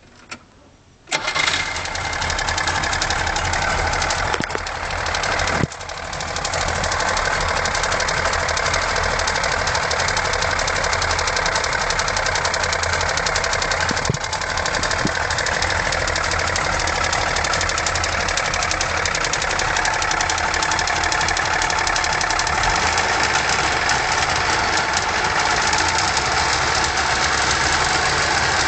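Wartburg 353's three-cylinder two-stroke engine started hot. It catches about a second in and settles into a steady idle with a distinct rattle from the middle cylinder.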